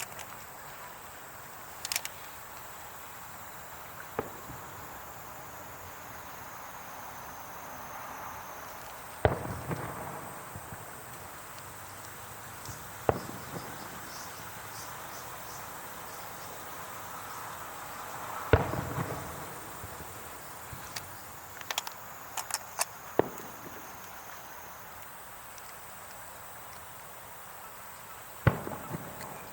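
Fireworks going off: about ten sharp bangs at irregular intervals, with a quick cluster of four about two-thirds of the way through. Under them runs a steady high insect trill.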